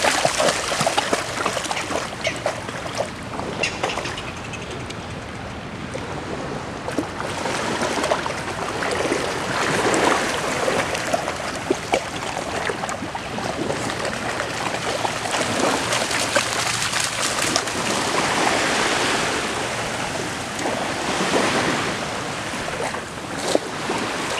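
Water splashing and sloshing as dogs wade and swim through shallow water, over a steady wash of water along the shore.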